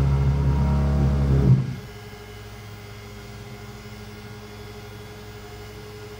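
X-Carve CNC router's stepper motors driving the gantry along its axis, a loud, steady, pitched hum. About one and a half seconds in it drops suddenly to a much quieter steady hum while the gantry keeps moving.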